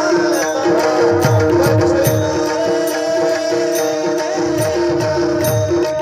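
Devotional bhajan music, instrumental: tabla playing a rhythm with bass-drum strokes that bend downward in pitch, over steady held melody notes and bright jingling cymbal strikes.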